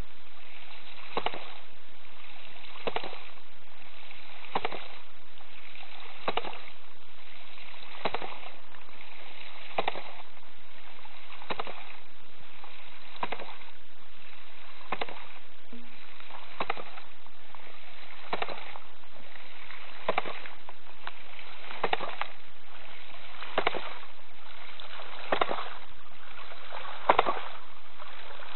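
Two-inch hydraulic ram pump running: its waste valve, a modified 2-inch foot valve, clacks shut about every 1.7 seconds in an even rhythm, each clack driving a pulse of water up the delivery line. Between the clacks, water spills steadily from the open valve.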